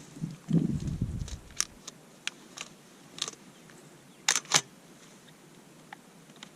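Handling noise: a low rumble about half a second in, then a scattered series of sharp clicks and snaps, the loudest two close together a little after four seconds.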